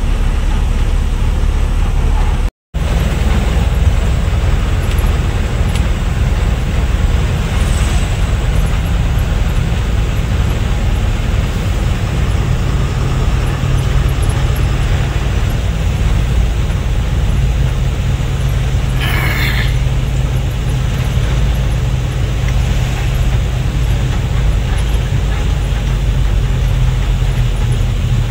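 Loaded truck's diesel engine and tyre noise heard from inside the cab while cruising on a highway, a steady low drone. The sound cuts out completely for a moment about two and a half seconds in, and a short sharper sound rises above the drone about two-thirds of the way through.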